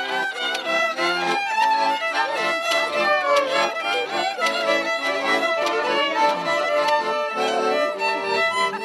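Violin-led folk band playing a Hungarian song (nóta) on fiddle with accompaniment, notes changing quickly and evenly accented.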